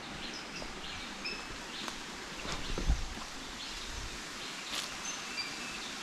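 Forest ambience: short, high bird chirps scattered over a steady background hiss, with a few soft footfalls on the path.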